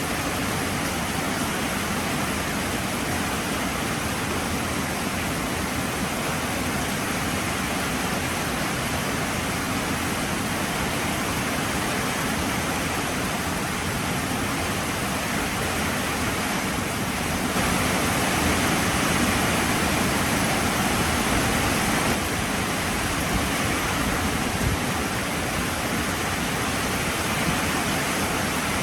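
Heavy rain falling as a steady, dense hiss with no single drops standing out. It grows louder a little over halfway through and eases again a few seconds later.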